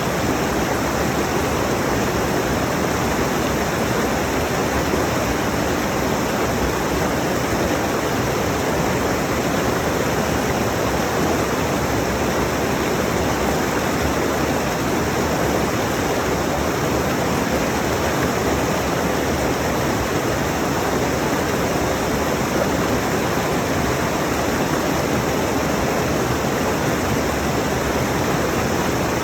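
A rushing mountain stream: water running over rocks in a steady, unbroken rush.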